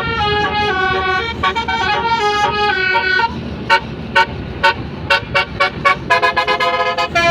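Tour bus telolet horn, a multi-tone musical air horn, playing a tune of stepping notes: long held notes for the first three seconds, then short notes broken by sharp clicks, and held notes again near the end.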